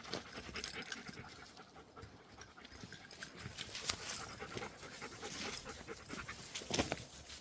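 A dog panting close by, quick short breaths, with scattered rustles and clicks and a louder rustle near the end.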